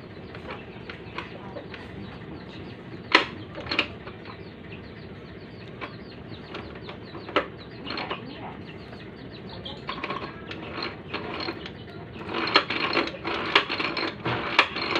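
Manual ice-shaving machine's metal mechanism being worked by hand: irregular clicks and knocks, a few loud single ones early and a quick run of them in the last few seconds.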